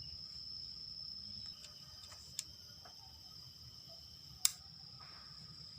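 Crickets trilling steadily in the background, with two sharp clicks about two and a half and four and a half seconds in; the second is louder.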